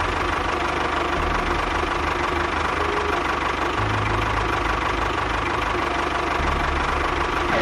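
Small motor running steadily with a constant whine and a pulsing low hum. The hum shifts a little a couple of times.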